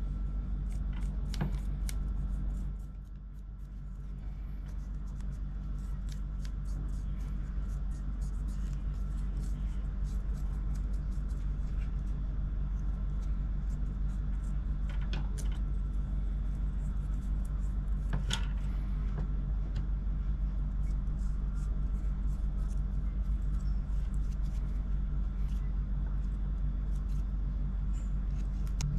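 A steady low hum with scattered small clicks and taps of tools on the parts of an opened MacBook Pro during speaker replacement. The hum dips briefly about three seconds in and builds back.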